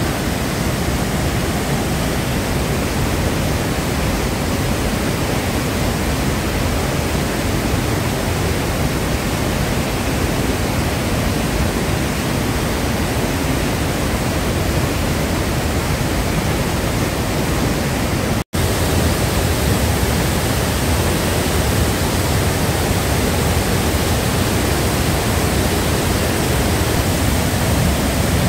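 Whitewater torrent and waterfall rushing through a narrow rock gorge: a loud, steady wash of water noise. It drops out for an instant about two-thirds of the way through, at an edit.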